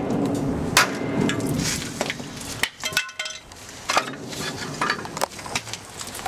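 Hammer blows and metallic clinks on a seized rear drum-brake shoe of a GMC 7000 truck: one hard blow about a second in, then lighter knocks and clinks with brief ringing. A steady low background noise drops away partway through.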